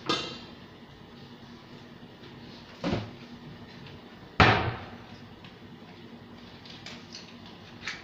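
Kitchen clatter: a ringing metal clank as the wok is set down on the gas stove's grate, then two duller knocks, the second and loudest about four and a half seconds in.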